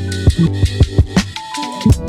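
Background music with a steady drum beat and sustained instrument tones.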